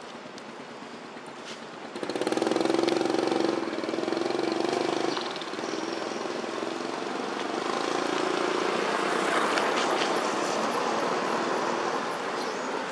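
A motor vehicle engine running close by, getting suddenly louder about two seconds in and staying steady, a little quieter after about five seconds.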